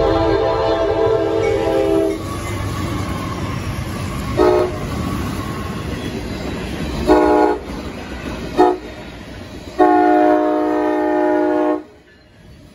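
Freight diesel locomotives rumbling past at a grade crossing while a train horn chord sounds: a long blast, three short blasts, then a long blast that cuts off sharply near the end. The rumble fades as the horn stops.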